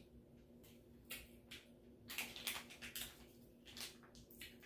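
Faint, irregular crinkling and rustling of a small condiment packet being handled and worked open by hand, over a low steady hum.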